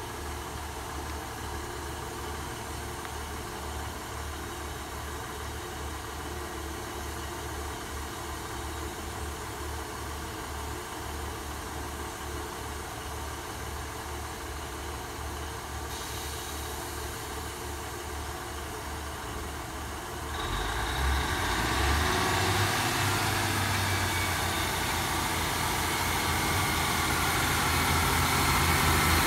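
Class 150 Sprinter diesel multiple unit's underfloor Cummins diesel engines idling steadily at the platform. About twenty seconds in, the engines open up and the train pulls away, growing steadily louder as it draws nearer.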